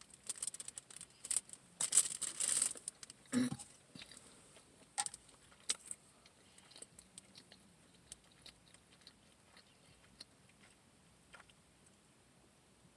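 Close-miked eating of a maple pancake-and-sausage griddle sandwich: a bite and chewing with wet mouth clicks, busiest and loudest in the first few seconds, then thinning to scattered faint clicks.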